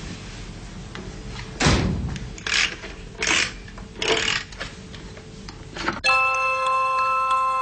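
A few short rustles of handling, then about six seconds in a music box starts to play a tinkling melody of clear, ringing notes.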